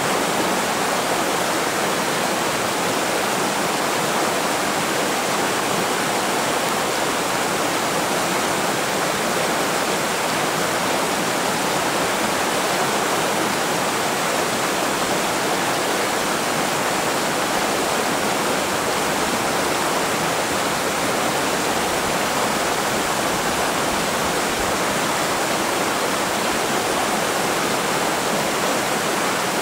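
Mountain river rushing steadily: an even, unbroken noise of fast-flowing water.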